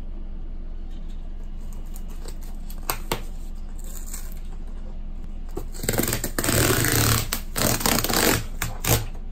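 Corrugated cardboard shipping box being torn open along its zip tear strip: two light knocks, then a ripping tear of cardboard lasting about two and a half seconds, with one last sharp rip near the end.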